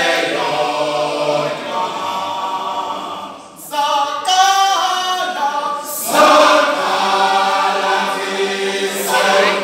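Male isicathamiya choir singing a cappella in close harmony, holding long chords. The voices drop away briefly about three and a half seconds in, then come back in together.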